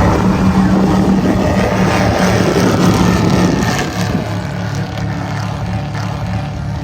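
Twin Mercury Racing engines of a 42-foot Cigarette powerboat running under way, a steady low drone with rushing noise over it; the sound drops a little about four seconds in.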